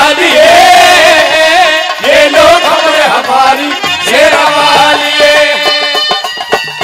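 Live Haryanvi devotional folk music: a wavering, gliding melody line over drum accompaniment, with the drum strokes growing clearer and more regular near the end.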